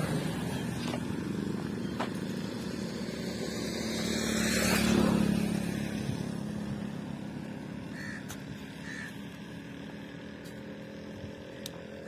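A motor vehicle passes, its engine hum getting louder to a peak about five seconds in and then fading away.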